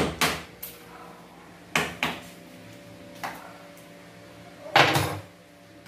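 A metal scraper scraping and knocking against a kitchen wall in a few separate short strokes, the loudest near the end. A faint steady hum runs underneath.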